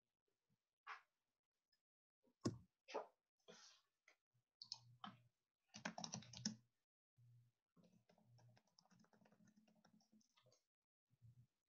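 Faint, scattered computer-keyboard typing: a handful of separate key clicks and taps with gaps between them, heard over a video-call connection.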